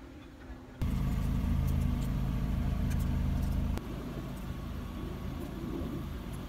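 Car engine idling, heard close to its foil-wrapped tailpipe: a steady low exhaust sound that comes in loud about a second in and drops to a quieter level near four seconds.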